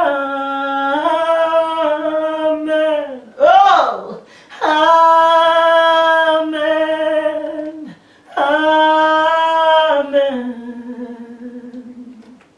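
A woman singing long held notes a cappella, in three sustained phrases with a short swooping slide between the first and second. The last note fades out near the end.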